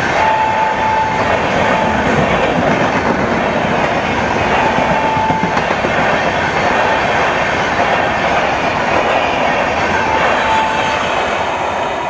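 Red LHB express passenger coaches running past at speed: a loud, steady rush of wheels on rail with clickety-clack. A thin high whine comes and goes about four times.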